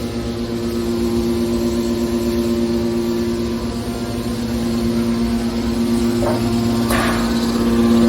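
Hydraulic scrap-metal baler's electric motor and hydraulic pump running with a steady hum, with two short rattling noises near the end.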